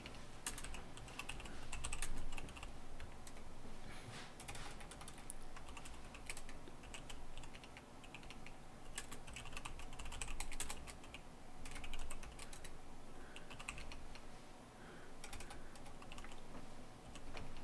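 Computer keyboard typing in short, irregular bursts of keystrokes with brief pauses between.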